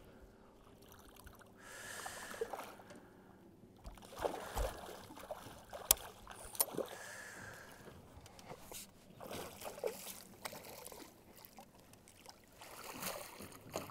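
Hooked lake trout splashing at the water's surface beside the boat in short, irregular bursts, with a few sharp clicks.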